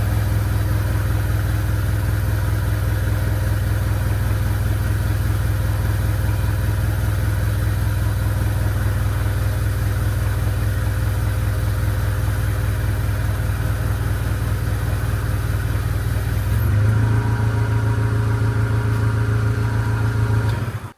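A motor running steadily with a deep hum. About 17 seconds in its note shifts and it gets a little louder, then it stops abruptly near the end.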